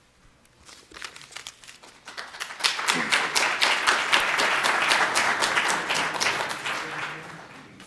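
Audience applauding: a few scattered claps that swell into full applause about two and a half seconds in, then die away near the end.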